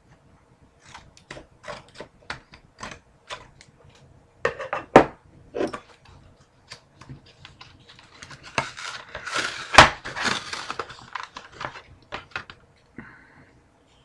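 Trading cards being handled: a string of small clicks and taps, with a busier stretch of rustling and scraping a little past the middle that includes one sharp tap.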